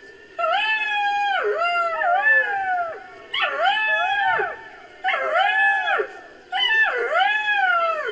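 Black-backed jackal calls, used as a creature sound effect: a series of about five high, wailing yelps, each arching up in pitch and then falling away, with short gaps between them.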